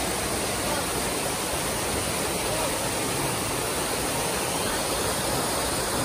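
Kapila Theertham waterfall: water falling down a rock face into the pool below, a steady rushing noise.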